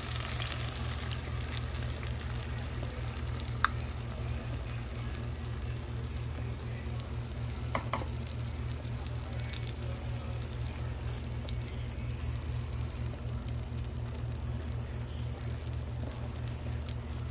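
Beaten eggs frying in a pan of hot oil and butter with tomatoes and garlic: a steady sizzle with fine crackling. Two sharp clicks come about 3.5 and 8 seconds in, and a steady low hum runs underneath.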